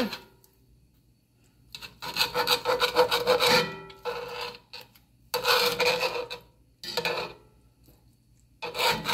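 Kitchen knife sawing through cooked steak in a cast iron skillet, the blade rasping against the pan's bottom. About five strokes with short quiet gaps between, the longest starting about two seconds in.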